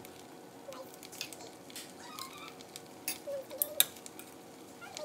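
A metal spoon scraping and clinking in a stainless steel pan as rice is stirred, with a light sizzle from the pan. The scrapes come in scattered strokes, and one sharp clink a little before four seconds in is the loudest.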